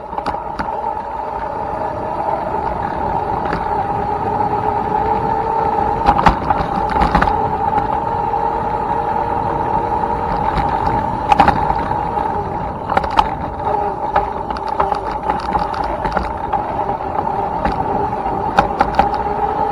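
Electric dirt bike's motor whining at a steady pitch as the bike is ridden, getting louder over the first couple of seconds, over a low rumble. Sharp knocks and clatters come several times from the bike going over the rough trail.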